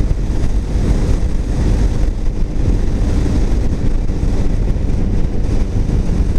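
Steady, loud rumble of wind buffeting the microphone of a motorcycle at cruising speed, with the bike's engine running underneath.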